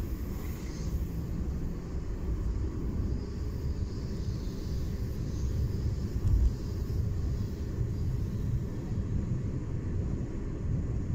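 Steady low rumble of a car's road and engine noise heard inside the moving car's cabin, with a brief louder bump about six seconds in.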